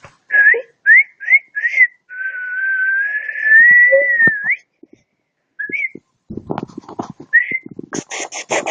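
Whistling: four short rising whistles, then one long held whistle lasting about two and a half seconds, then a couple of short whistles. Near the end comes a fast run of sharp chirps.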